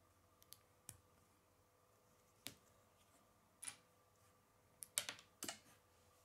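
Small plastic Lego bricks and plates being handled and snapped together, giving a scattering of short, sharp clicks. The clicks come singly at first, with a quick cluster of the loudest ones about five seconds in.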